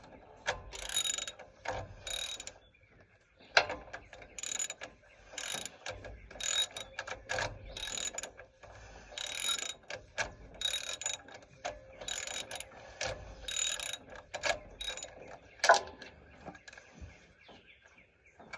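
Ratchet wrench clicking in repeated short strokes as an old spark plug is backed out of the engine, with a couple of sharper knocks.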